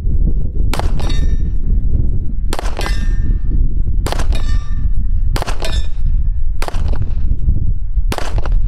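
AR500 steel target plate struck by rifle rounds, six sharp clangs about a second and a half apart, each ringing on briefly after the hit.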